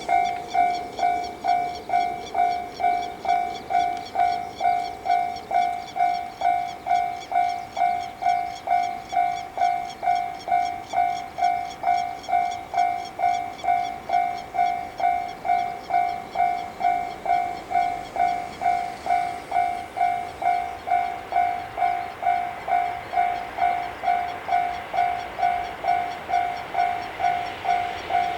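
Japanese level-crossing warning bell ringing in an even, repeating electronic clang at about two strikes a second, warning of an approaching train. Near the end the rising noise of the approaching 313-series electric train starts to come through under the bell.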